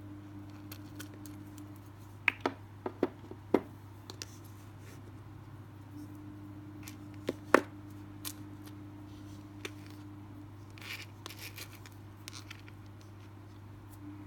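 Pliers snipping the tag ends of fishing line at a three-way swivel: a quick run of sharp clicks about two to four seconds in and one louder click near the middle, followed by a few lighter taps and rustles.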